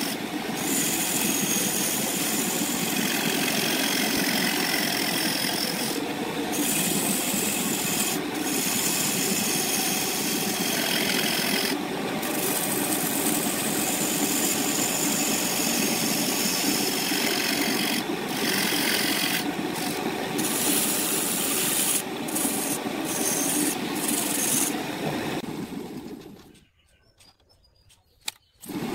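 Wood lathe spinning a wooden workpiece while a tool is held against it: a steady rough rubbing noise with brief breaks. It falls almost silent for about two seconds near the end, then starts again.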